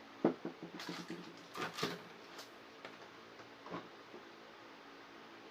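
Scattered knocks and short rattles from handling a belt sander while its sanding belt is being changed, the sharpest knock about a quarter second in and the last near four seconds, over a faint steady hum.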